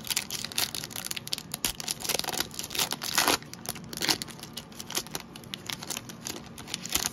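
Foil wrapper of a trading card pack crinkling and tearing as it is ripped open by hand: a dense run of sharp crackles, loudest about three seconds in.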